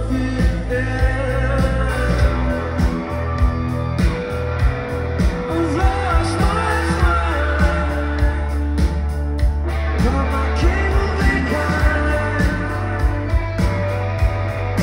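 Live rock band playing a song: electric guitar, bass and a steady drumbeat, with a male lead singer singing over them.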